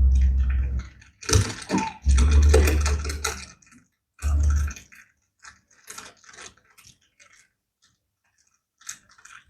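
A small piece of empty plastic crumpled and worked close to a microphone as a Foley stand-in for a crackling campfire: dense, irregular crackles and snaps with heavy low thumps through the first half, thinning to scattered faint clicks in the second half.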